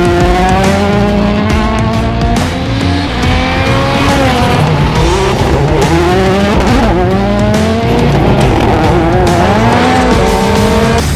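Citroën World Rally Car engine revving hard, its pitch climbing and dropping several times as it shifts through the gears, with some tyre squeal, over loud background music.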